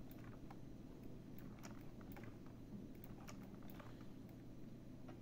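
Faint, scattered clicks of a computer mouse as pen-tool anchor points are placed, over a low steady hum.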